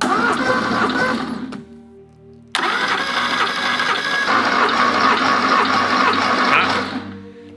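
Starter motor cranking the 1977 Porsche 911S's air-cooled flat-six engine without it firing, for a compression test. There are two bursts of cranking: a short one of about a second and a half, then a longer one of about four seconds, starting a second after the first ends.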